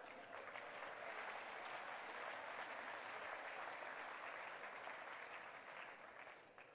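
Audience applauding, a steady patter of many hands that swells early and dies away near the end.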